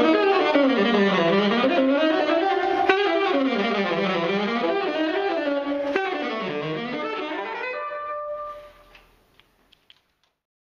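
Solo saxophone improvising on a dense, many-toned sound that swoops down in pitch and back up three times, then a held note dies away about eight and a half seconds in. A few faint clicks follow.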